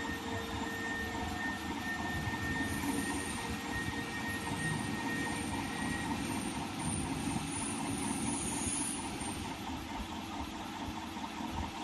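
Small CO2 laser engraver running: a steady mechanical whir and hiss from its fans and pump, with a faint high steady tone over it.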